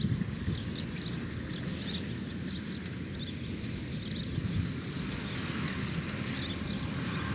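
Woodland ambience at dawn: a steady low rumble with small birds chirping repeatedly and high-pitched over it.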